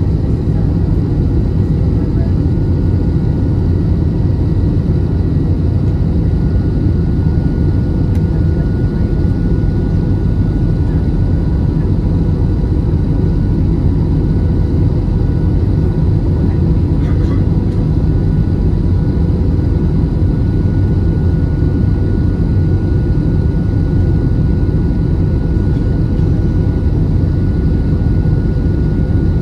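Steady cabin noise of an Airbus A320-216 in flight, heard inside the cabin from a window seat: a constant low roar of its CFM56 engines and airflow with a faint steady whine on top.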